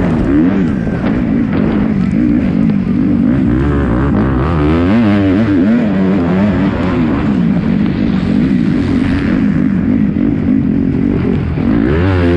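Kawasaki 250cc four-stroke motocross bike's engine, heard on board, revving hard and dropping again and again as the rider accelerates, shifts and rolls off the throttle through the turns and jumps.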